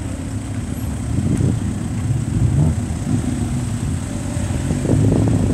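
Car engines running at low speed as cars creep forward in a queue, a steady low engine hum that grows louder near the end.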